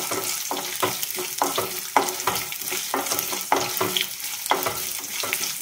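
Coconut slices and mustard seeds frying in hot oil in a small kadai: a steady sizzle with many short crackles and pops.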